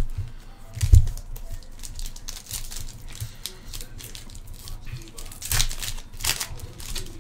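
Foil trading-card pack wrappers crinkling and tearing as packs are opened and the cards handled. There is a knock on the table about a second in.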